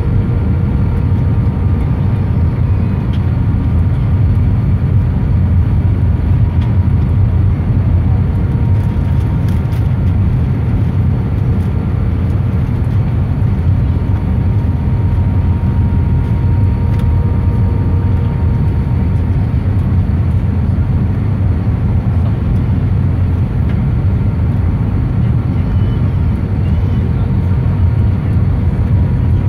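Airbus A319 cabin noise during the descent to land: a steady low rumble of engines and airflow, with a faint steady whine over it.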